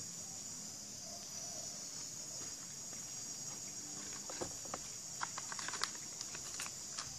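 Steady, high-pitched chorus of crickets or similar insects. From about four seconds in, a scatter of small, sharp clicks and ticks sounds over it.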